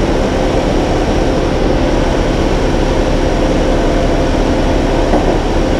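2010 Ford Taurus SHO's 3.5-litre EcoBoost twin-turbo V6 idling steadily while still warming up, the freshly installed replacement engine running.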